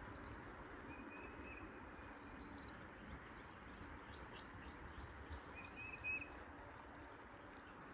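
Faint outdoor ambience with a steady low hiss, and a few short, high bird calls: a whistled note about half a second in and again around six seconds, with fainter chirps between.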